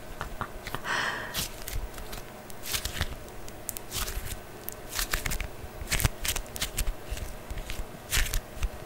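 Fingers working a sticky anti-stress putty: an irregular run of tacky clicks and crackles, with a brief hiss about a second in.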